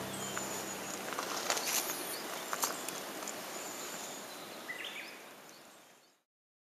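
Outdoor lakeside ambience: a steady hiss of open air with a few faint high bird chirps and soft clicks. It fades out to silence about six seconds in. The tail of a pitched musical note dies away in the first second.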